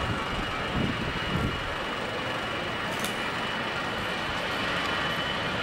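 Airbus A320's CFM56 jet engines running on the takeoff run: a steady rumble with a thin high whine, growing a little louder toward the end.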